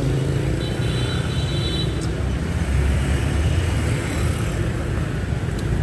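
Busy city road traffic: a steady low rumble of passing motor vehicles.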